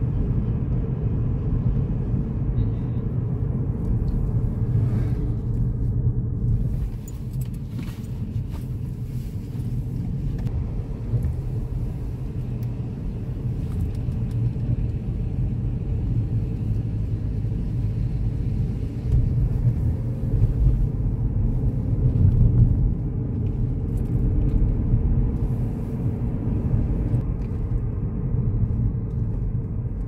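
A car driving on a country road, heard from inside the cabin: a steady low rumble of engine and tyre noise.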